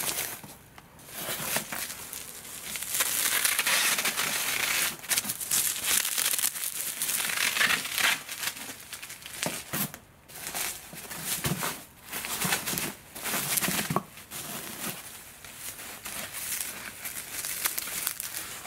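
Bubble wrap crinkling and rustling as it is pulled apart and unwrapped by hand, steadiest and loudest in the first half, with a short break about ten seconds in and more broken-up handling after.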